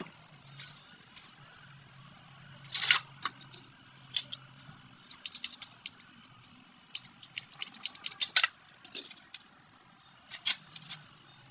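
Irregular sharp clicks and taps of hard objects being handled, coming in quick runs about five and eight seconds in, over a faint steady low hum.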